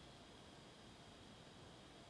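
Near silence: a faint, steady hiss with a thin high whine.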